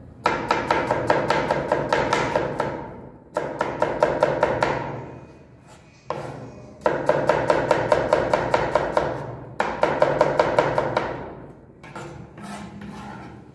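Chef's knife chopping an onion fast on a cutting board: rapid knocks of the blade on the board, about five a second, in four runs of two to three seconds with short pauses between them, then a few lighter taps near the end.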